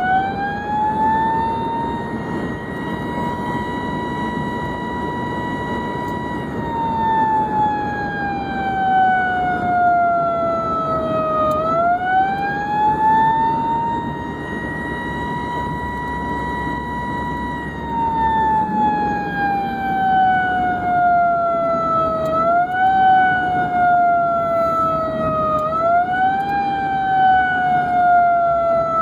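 Emergency vehicle siren on a slow, irregular wail: the pitch rises over a couple of seconds, holds steady for several seconds, then slides slowly down, with two shorter rises near the end. Road and engine noise from the moving vehicle runs underneath.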